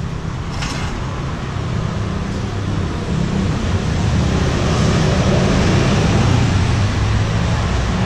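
Road traffic running steadily close by, engine noise growing louder about four seconds in as a vehicle passes.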